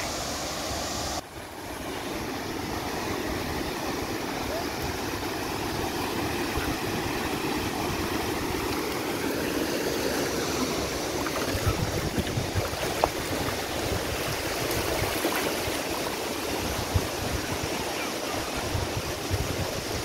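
Small waves washing over a shallow sandy shore, a steady rushing hiss, with wind rumbling on the microphone at times.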